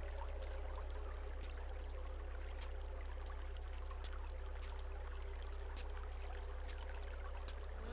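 Eerie film ambience: a steady deep drone with faint sustained tones above it and scattered soft ticks and crackles, with a faint trickling-water quality.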